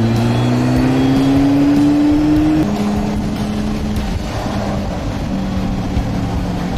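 Honda CB400 motorcycle engine pulling under acceleration, its pitch rising steadily, then the revs drop suddenly about two and a half seconds in and it runs on at a steady lower pitch, with wind noise over the microphone.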